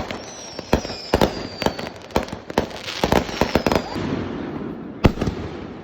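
Fireworks going off: a rapid string of sharp bangs and crackle, with two high whistles falling slightly in pitch, one starting just after the beginning and one about three seconds in. A single loud bang comes about five seconds in, and the noise then thins out.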